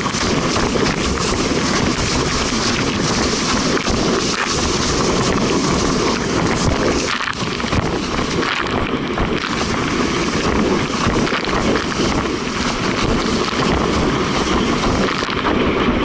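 Strong wind buffeting the microphone of a rig-mounted camera over the rush of water and spray past a windsurf board planing at over 20 mph. The noise is loud and steady.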